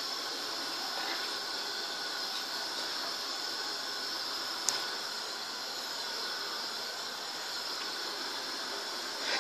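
Steady hiss of a pot of sugar syrup at a rolling boil on the stove, with one sharp click a little before the middle.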